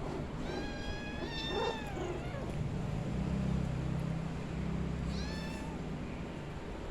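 A young pet gives short, high-pitched cries: two near the start and one about five seconds in. A low steady hum runs through the middle.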